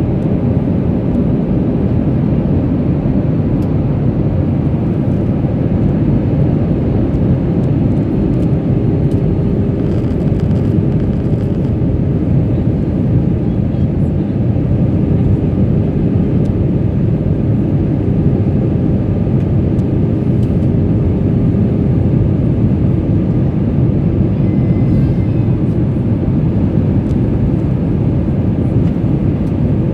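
Steady engine and airflow noise inside an airliner cabin in flight, with a faint steady hum.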